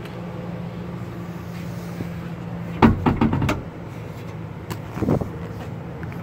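A 2010 Ford F-250's rear fold-out plastic load floor and seat cushion being folded back: a loud cluster of clunks and rattles about three seconds in and a smaller knock about two seconds later, over a steady low hum in the cab.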